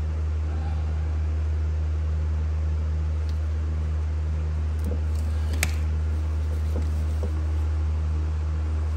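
A steady low hum runs throughout, over a few faint clicks and one sharper click about five and a half seconds in, as a hand crimping tool squeezes a butt connector onto a wire.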